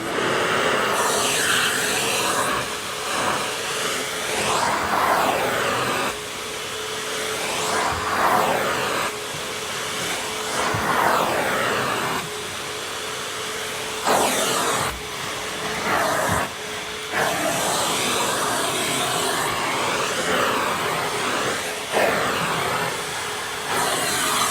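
Numatic NVDQ572 twin-motor industrial vacuum cleaner running, a loud, continuous rush of air through its motors and large hose. The pitch of the airflow rises and falls again and again.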